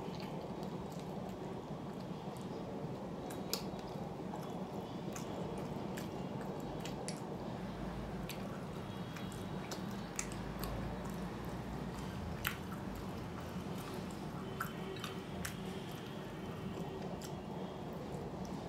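Wet chewing and mouth smacks of someone eating rice and fish, a scatter of short clicks over a steady low hum.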